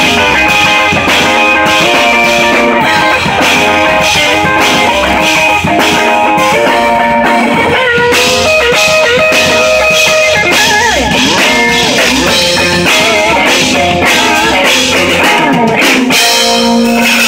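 Live rock band: an electric guitar played loud over a drum kit keeping a steady beat, with guitar notes bending in pitch about halfway through.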